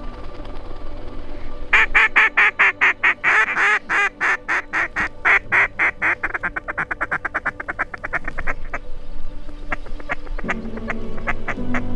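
A fast, even run of duck quacks, about six a second, loud at first and then fading. After about eight seconds they thin out into sparser, quieter quacks.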